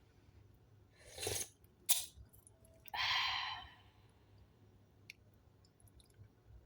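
Eating from a bowl with a spoon: a sharp clink and a few faint ticks between two short noisy bursts, the longer one about three seconds in.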